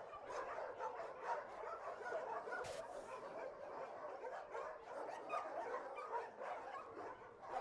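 Many dogs barking and yelping at once, a continuous tangle of overlapping calls.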